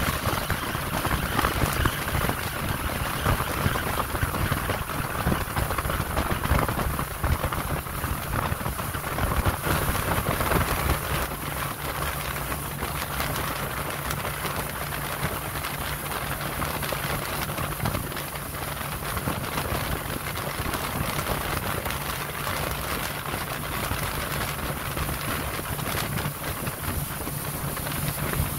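Choppy water and wind noise aboard a small boat, a steady crackling hiss. About twelve seconds in, a steady low engine hum comes in beneath it.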